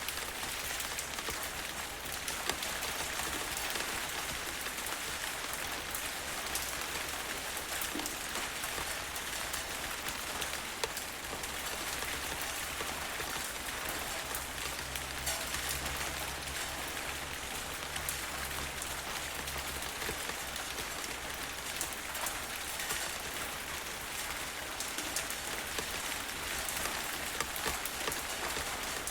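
Steady rainstorm rain falling, an even wash of sound dotted with many individual drops ticking on a surface, over a low steady rumble.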